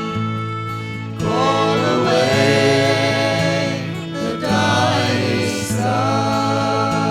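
Folk band playing live: steady held chords under several voices singing together.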